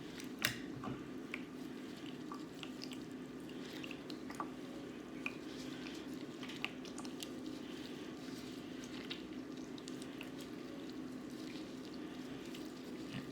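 Homemade borax-and-glue slime being stretched and squeezed by hand: scattered small wet squelches and clicks, the sharpest about half a second in, over a steady low hum.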